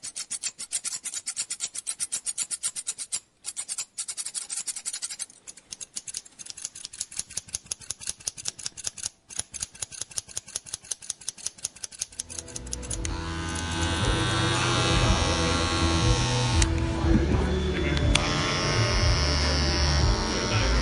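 Quick, even scraping strokes, several a second, of a barber's scissors or comb working through hair. About twelve seconds in, a louder electric hair clipper buzz starts, mixed with voices and music.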